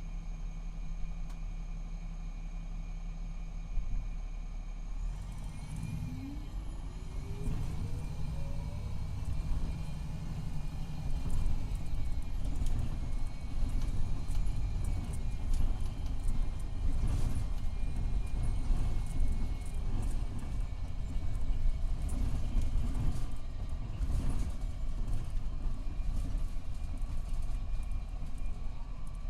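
MCI D4500CT coach with a Cummins ISX12 diesel and Allison B500R automatic, running steadily and then pulling away about five seconds in, with a whine that rises in pitch as it gathers speed and a louder, rougher run after. The transmission is said to be in its last stages.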